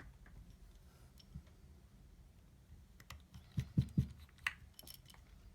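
Small clicks and taps of a screwdriver and a tiny pentalobe screw against a phone's frame, with a quick cluster of three or four knocks about three and a half seconds in and a few lighter clicks just after.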